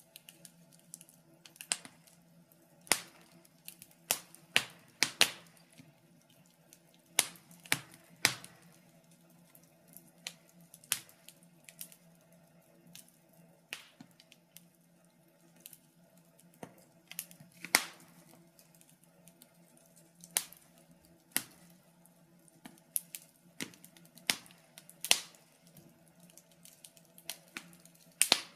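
Wood fire in a fireplace crackling: irregular sharp pops and snaps, a few every couple of seconds, some louder than others, over a faint steady hum.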